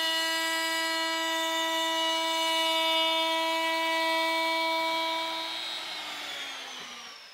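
DeWalt palm trim router spinning a round-over bit, running at a steady high-pitched whine. About six seconds in it is switched off and winds down, its pitch falling as it fades out.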